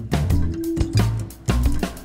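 Background music with a steady drum beat, bass and pitched notes.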